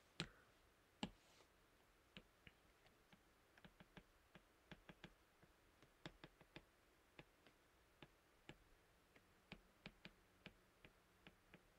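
Stylus tip tapping and clicking on a tablet's glass screen during handwriting: a faint, irregular run of small clicks, the two strongest in the first second.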